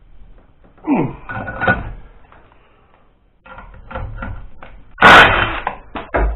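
Wrenches and metal parts clinking and clanking while working a seized exhaust-manifold stud held in a bench vise, with a short sound falling in pitch about a second in and one loud metallic bang about five seconds in.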